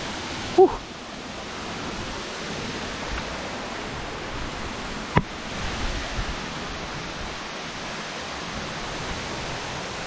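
Steady rush of a waterfall, an even hiss of falling water. A short pitched sound comes under a second in, and a single sharp click about five seconds in.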